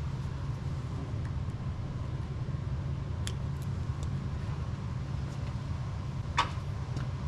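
A steady low rumble with a few light clicks and taps of hand work on the camera wiring and mount, the sharpest about six seconds in.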